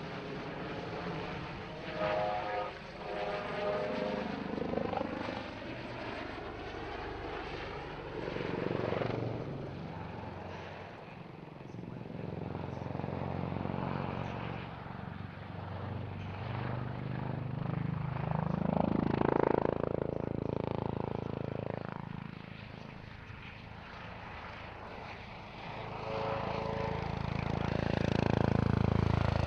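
Airbus H145M military helicopter, with twin Turbomeca Arriel 2E turboshaft engines, flying a display. Its rotor beat and turbine sound rise and fall as it manoeuvres, growing loudest in two passes, one past the middle and one near the end, with the pitch sliding as it goes by.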